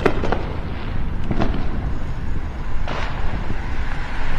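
A few scattered firework and firecracker bangs, about four sharp pops spread over the few seconds, over a steady low rumble of wind on the microphone and road noise.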